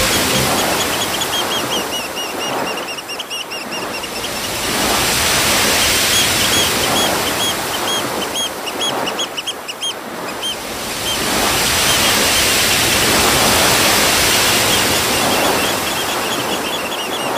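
Ocean surf breaking and washing over a rocky shore, swelling and ebbing in long surges. A bird chirps in quick repeated runs of short calls over it.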